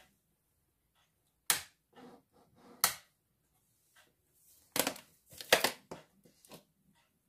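A handful of sharp clicks and knocks from handling kitchen things on a table, loudest about a second and a half in, near three seconds, and in a cluster around five seconds.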